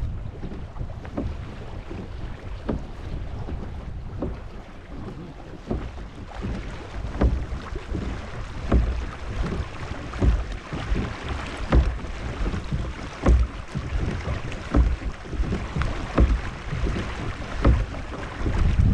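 Kayak moving across open water, with wind rumbling on the microphone; from about a third of the way in, water splashes against the hull in a regular rhythm, roughly one stroke every second or less.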